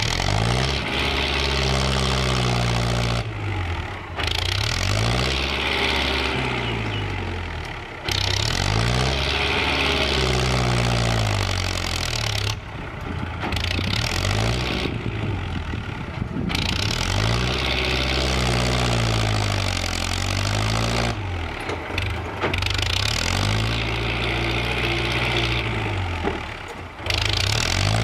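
Kubota compact tractor's diesel engine running hard while its front dozer blade pushes soil, the engine speed rising and falling over and over, about every four seconds.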